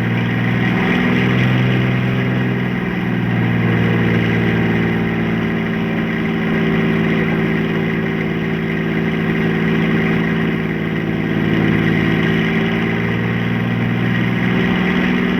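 Engine of a runaway motor vehicle running steadily at speed, a constant drone that nobody aboard knows how to shut off.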